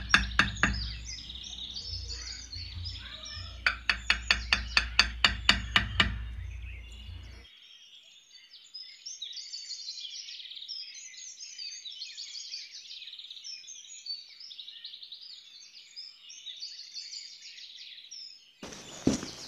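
Two quick runs of sharp taps, about six a second, over a low rumble in the first six seconds or so. Then, from about seven seconds in, only birds chirping and twittering, thin and high with no low sound under it.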